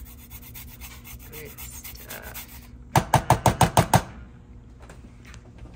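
Lemon being zested on a fine grater: quick rasping strokes, faint at first, then a burst of about eight loud strokes in about a second, some three seconds in.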